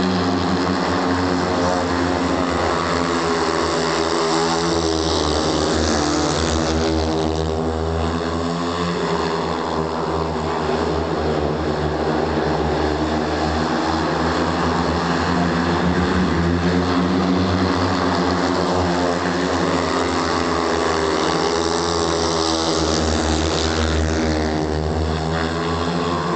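Several speedway motorcycles, single-cylinder 500 cc methanol-burning engines, running hard around a dirt oval. Their pitch climbs and falls as they accelerate and pass, with the loudest passes about 6 seconds in and again near the end.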